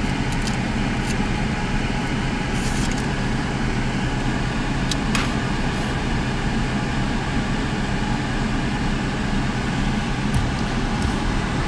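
Car idling with the engine at rest speed, a steady low hum heard from inside the cabin, with a few faint clicks over it.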